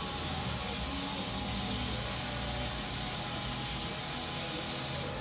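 Compressed-air spray gun hissing steadily as it sprays thinned Raptor bed liner onto a jet ski's hull; the hiss cuts off near the end.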